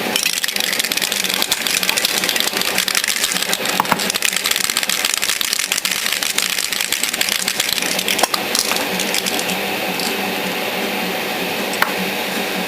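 Aerosol spray can of AS-28 medium gray paint spraying onto a plastic model: a hiss that sputters rapidly for the first eight seconds or so, then settles into a steadier hiss.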